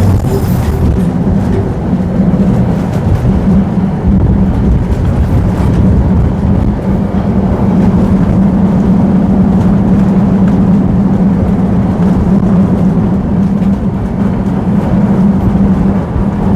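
Tram running along the track: a steady, loud rumble of wheels and running gear with a constant low hum.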